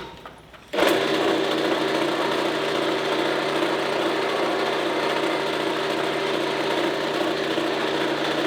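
Drill with a 1-inch bit starting up about a second in and running steadily under load, boring out a steel part.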